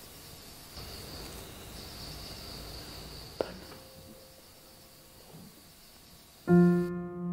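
Steady high chirring of crickets over quiet room tone, with a single sharp click about three and a half seconds in. Near the end, piano music comes in with a loud held chord.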